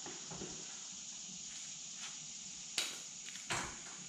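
Two short, sharp knocks a little under a second apart, about three seconds in, from hand work at the back of the VW bus, over a steady faint hiss.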